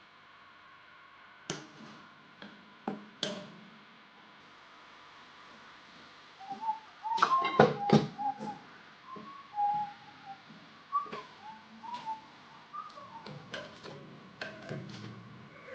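A person whistling a wandering tune in short notes, starting about halfway through. Sharp clicks and knocks of handling work come before and under it, loudest in a quick cluster just as the whistling begins.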